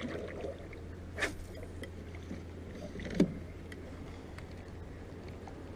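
Scattered knocks and clicks of fishing gear being handled in a small metal boat, the loudest a dull thump about three seconds in, over a steady low hum.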